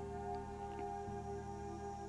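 Quiet background music of long, held tones.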